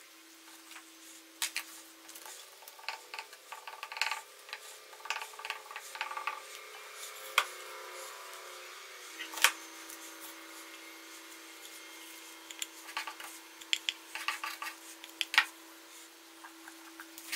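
Hard objects being handled: irregular clinks, knocks and short scrapes, a few sharper knocks standing out, over a steady faint hum.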